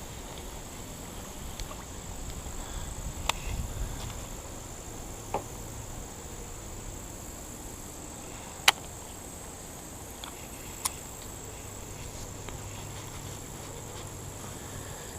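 Steady high-pitched insect chirring in the background, with a few sharp clicks, the loudest a little past the middle, and a brief low rumble about three seconds in.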